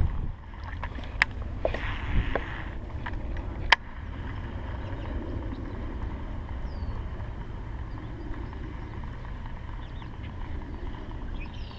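Wind rumbling on the microphone, with two sharp clicks in the first four seconds.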